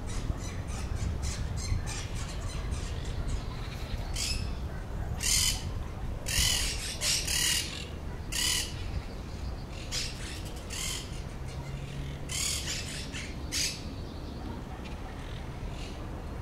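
Hummingbird calling: a quick run of faint, short, high ticks, then about ten louder, scratchy, high-pitched chips at uneven spacing, over a steady low background rumble.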